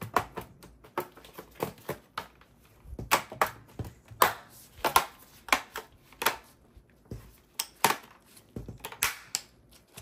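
Bottom cover of an HP ZBook Power G7 laptop being pressed back onto the chassis: a run of irregular sharp clicks and snaps as the cover's edge clips seat, with light handling knocks between.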